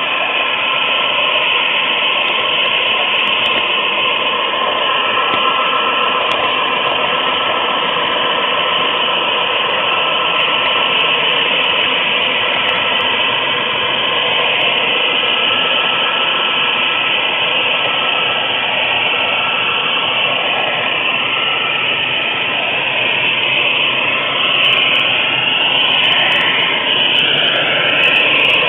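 HO scale model train's wheels rolling on the track, heard close-up from a camera riding on a flat car: a loud, steady rushing noise with a steady motor whine. The whine wavers near the end, and a few sharp clicks come in the last few seconds as the car runs through turnouts.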